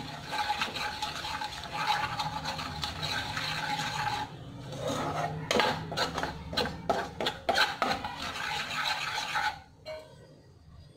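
Steel spoon scraping and stirring spice masala frying in oil in a white nonstick kadhai. Steady scraping at first, then a run of quick strokes about three a second, stopping about a second and a half before the end.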